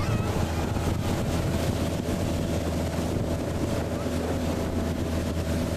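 Motorboat engine running steadily with a constant low hum while under way, with wind buffeting the microphone.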